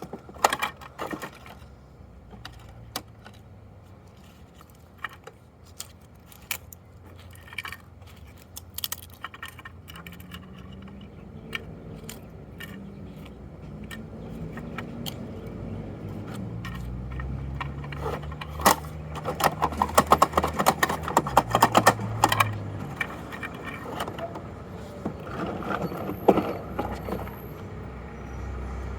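Plastic clicking and rattling from a Bruder toy garbage truck being handled and worked, with a low hum that rises and falls in pitch through the middle and a dense run of rattling about two-thirds of the way through.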